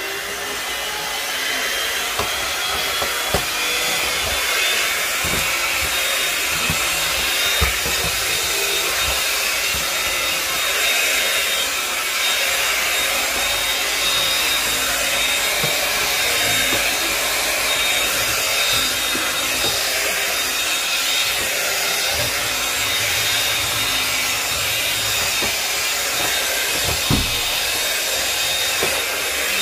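Household vacuum cleaner running steadily, its whine rising as the motor comes up to speed in the first few seconds, with a few knocks along the way.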